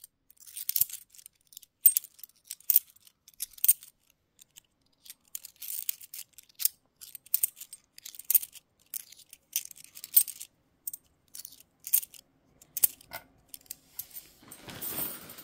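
Cupronickel 50p coins being sorted by hand and dropped onto other coins, making many separate sharp metallic clinks at an irregular pace. A soft rustle comes near the end.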